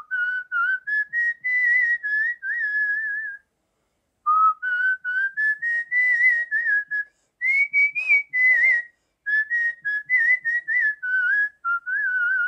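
A person whistling a melodic tune in short phrases, with a brief pause about three and a half seconds in.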